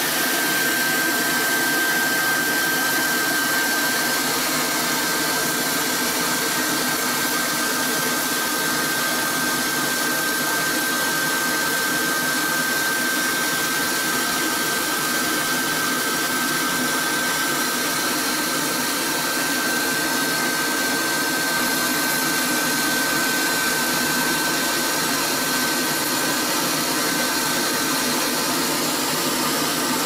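Homemade vacuum cleaner driven by a 12 V DC exhaust fan in a plastic jar, running steadily and sucking air through its hose with a rushing sound and a steady high whine from the fan.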